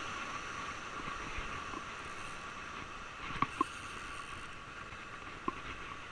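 Steady wash of sea surf breaking over rocks, with a spinning reel being wound in to retrieve a lure. A few sharp clicks stand out, two close together about three and a half seconds in and one about five and a half seconds in.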